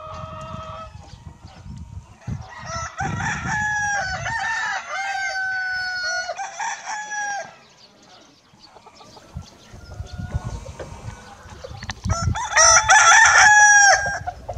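Pavlovskie roosters crowing: a long stretch of crowing in the first half, then a single louder crow near the end.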